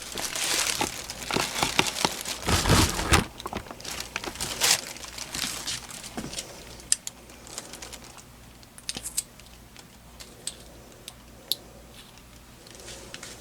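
Rustling and crinkling handling noise for the first few seconds, then scattered small sharp clicks as the Janome HD1000's shuttle and bobbin case are taken out and handled.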